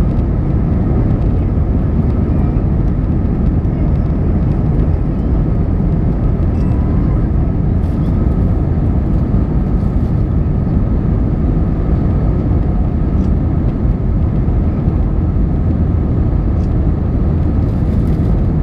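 Airliner noise during take-off: a steady, even rumble of engines and rushing air with a faint constant whine.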